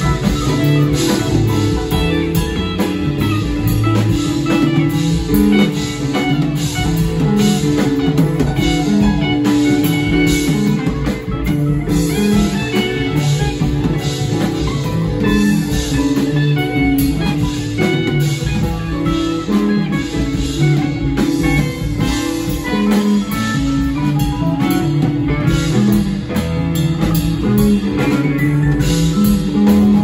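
Live rock band playing: a Telecaster-style electric guitar leads over a drum kit and keyboards.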